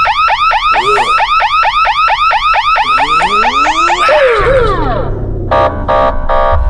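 Shop anti-theft security gate alarm going off: a loud warbling whoop repeating about six times a second, which winds down in a falling glide about four seconds in, followed by three short electronic buzzer beeps.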